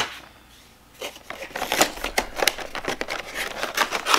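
Cardboard collection box and its clear plastic insert being handled and opened: a quick, irregular run of crinkles, clicks and scrapes starting about a second in.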